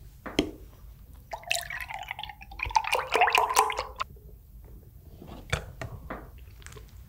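Milk being poured into a glass, a gurgling, splashing pour of about two and a half seconds whose pitch rises slightly as the glass fills, with a few light clicks and taps of the carton and glass before and after.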